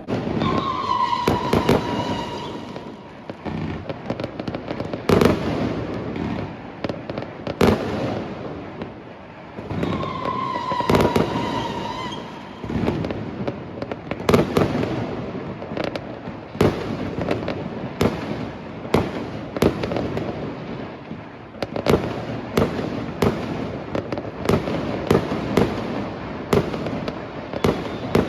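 Fireworks going off: a continuous crackle under many sharp bangs, which come faster in the second half. A whistling tone sounds twice, near the start and about ten seconds in.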